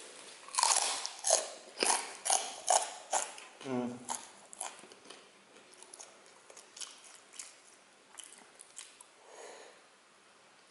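Close-up crunching and chewing of krupuk crackers being bitten and eaten: a quick run of loud, sharp crunches in the first few seconds, then softer, sparser crunches as the chewing goes on.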